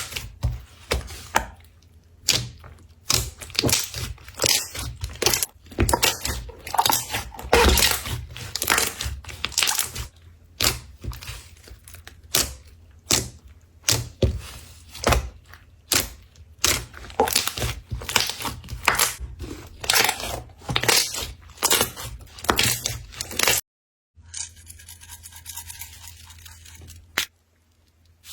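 Slime being squeezed and pressed by hand, giving irregular sharp crackling pops about one to two a second. About 24 seconds in it cuts to a softer, steady hissing texture.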